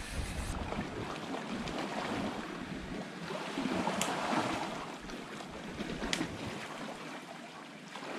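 Sea waves washing against a rocky shoreline, with gusts of wind on the microphone. Two light clicks sound partway through.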